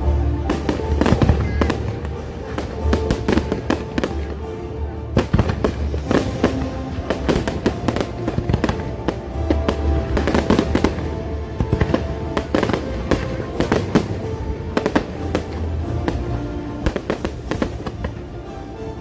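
A fireworks display going off in rapid succession: dozens of sharp bangs and crackles, with show music playing underneath.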